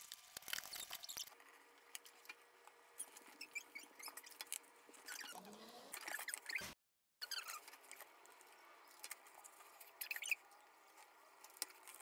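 Scissors snipping through corrugated cardboard for about the first second, then quieter handling of the cardboard box: scattered taps and rubs with a few short squeaks. The sound drops out completely for a moment a little past halfway.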